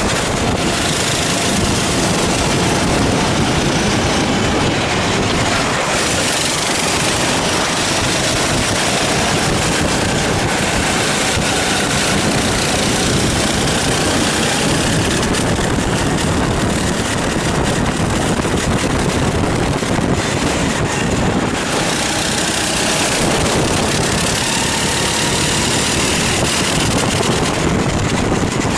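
Sodi rental kart engines running flat out on track, the revs rising and falling through the corners, with a second kart running close ahead.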